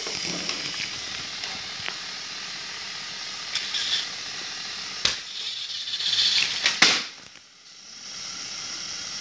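Battery-powered toy train running on plastic track: a steady high motor whir with clicks and clacks from the wheels on the track. Louder knocks come about five and seven seconds in, and the whir dips briefly after the second before picking up again.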